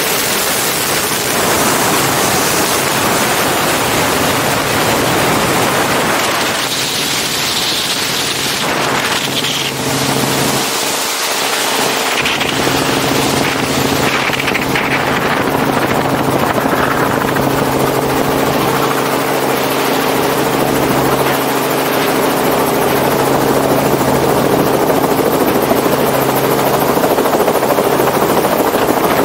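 Robinson R44 helicopter in flight, heard from a camera outside the cabin: at first heavy wind rush over the microphone, then, from about halfway, the steady drone of the rotor and engine comes through more clearly as the helicopter slows low over the ground.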